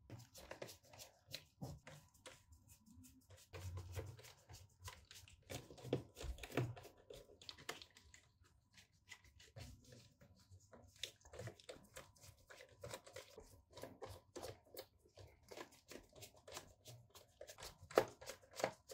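Small screws being unscrewed and lifted out of the plastic bottom case of an ASUS X555 laptop: a string of light clicks, taps and scrapes of hands, screws and plastic, with a sharper click near the end.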